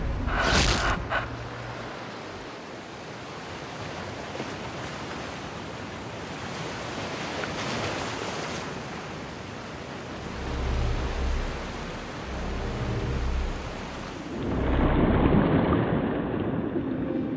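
Ocean surf washing in steadily after a sharp splash about half a second in, with low rolling swells. About fourteen seconds in it turns into a louder, muffled underwater rush of churning water as a wave breaks overhead.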